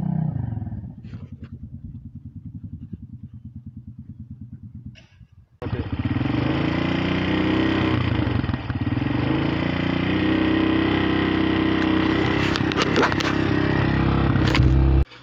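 ATV engines. First a quad's engine eases off and runs at low revs with a regular chug. After a sudden cut, a Honda ATV's engine runs loud and close, steady with a brief dip in revs, and stops abruptly near the end.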